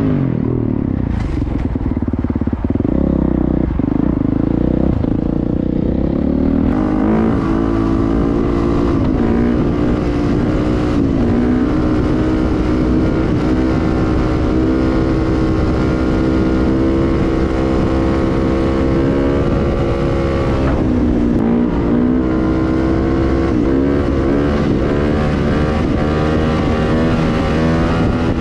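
Dirt bike engine under throttle. Its revs climb sharply about a quarter of the way in, then hold steady while the bike is ridden on its back wheel in a wheelie, dipping briefly and picking up again about three quarters through. Wind rushes over the helmet-mounted microphone.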